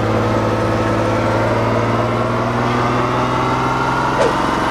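Riding lawn mower engine running steadily, with a whine that rises slowly in pitch, and a short click near the end.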